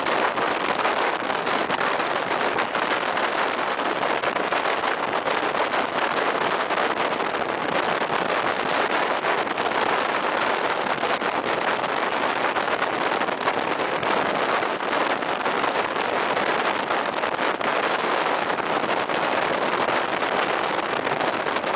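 Steady rush of wind buffeting the microphone held out of a moving train's window, with the train's running noise underneath.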